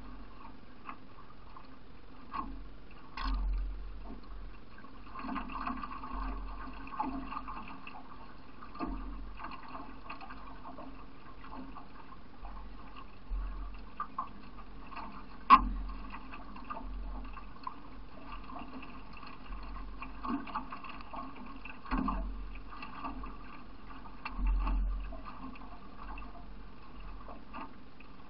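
River water splashing and gurgling around a solo racing canoe as it is paddled downstream, with uneven swells of sloshing and a few sharp knocks, the loudest about halfway through.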